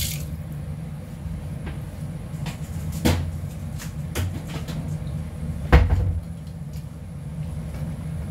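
Quiet kitchen sounds: a steady low hum with a few scattered knocks, the loudest about six seconds in.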